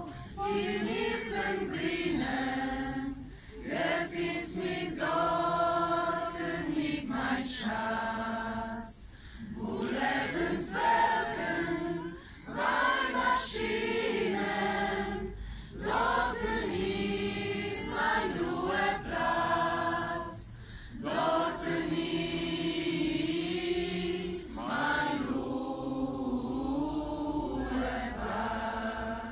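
A group of people singing a song together in unison as they walk, in slow phrases of long held notes with brief pauses between them.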